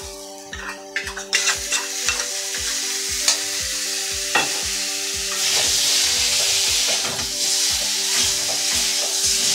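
Green chilli, cumin, ginger and garlic paste sizzling in hot oil as it goes onto fried potatoes in a steel kadai, with a metal spatula clicking and scraping against the pan as it is stirred in. The sizzle grows louder about halfway through. Background music with a steady beat plays underneath.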